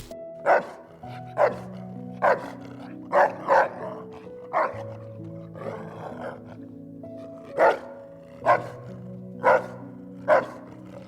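A dog barking in short single barks, about nine in all with pauses between, over background music of held notes.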